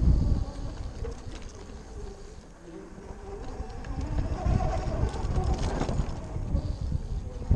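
Zero FX electric motorcycle ridden over a dirt track: wind buffeting the helmet-mounted camera's microphone, easing about half a second in and building again after the middle, over the faint wavering whine of the electric motor. A sharp knock comes right at the end.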